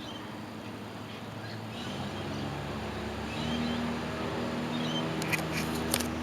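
GEC Bianca ceiling fan running on medium speed, a steady motor hum that grows louder about two and three and a half seconds in. A few sharp clicks near the end.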